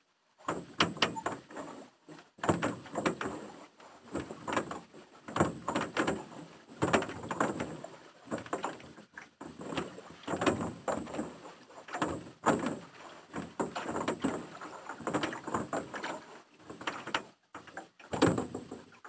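A rowboat being rowed: the oars knock and creak in their oarlocks and splash in the water, in a run of irregular noisy strokes about once or twice a second.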